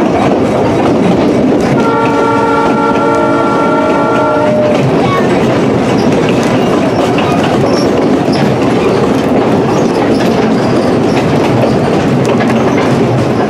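Narrow-gauge passenger train running, heard from aboard one of its cars: a steady rumble with wheels clicking over the rail joints. About two seconds in, the locomotive sounds one long horn chord that lasts about two and a half seconds.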